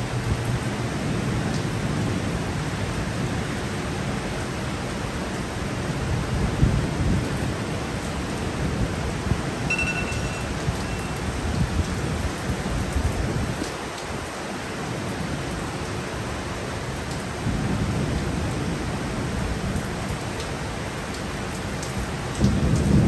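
Heavy driving rain pouring steadily, with low rolls of thunder that swell and fade and grow louder near the end. A brief high chirp is heard about ten seconds in.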